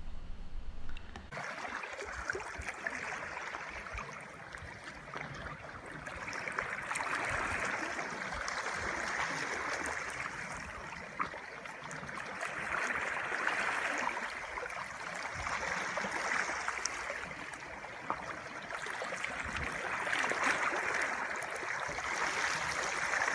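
Water rippling and splashing, a steady wash that swells and eases every few seconds.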